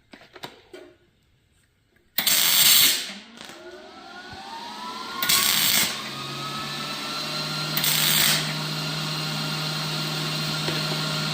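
An electric power tool motor starts with a sudden harsh burst about two seconds in, then spins up over a few seconds to a steady whine, with two more short harsh bursts over it.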